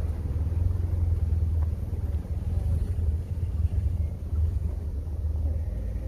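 Steady low outdoor rumble, fluctuating slightly in level, with a faint hiss above it.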